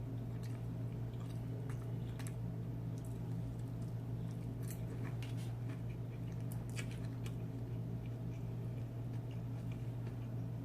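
Close-up chewing and mouth sounds of someone eating Chinese takeout, with scattered small clicks and soft squishy noises. A steady low hum runs underneath and is the loudest thing.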